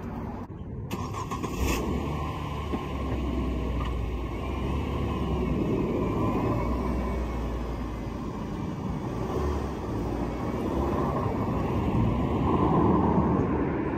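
A car's engine and tyre noise as it drives close by, getting somewhat louder near the end; most likely the owner's 2003 Mazda Protege5 pulling away and coming back.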